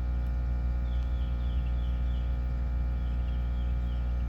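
A steady low hum, with faint short high chirps repeating about three times a second.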